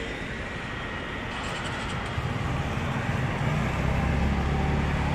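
Road traffic with a heavy vehicle approaching: a low engine drone builds from about two seconds in and grows steadily louder.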